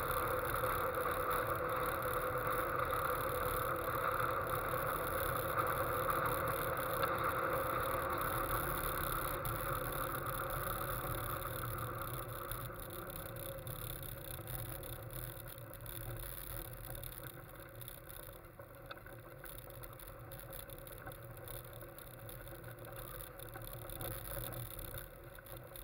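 Engine and road-and-wind noise of an open-cockpit Westfield sports car on the move, heard from the driver's seat. It gets quieter from about halfway through as the car eases off and slows.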